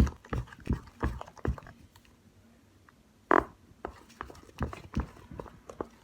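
Slime being kneaded and stretched by hand, giving a run of short wet clicks and pops. About three seconds in there is one louder, brief sound.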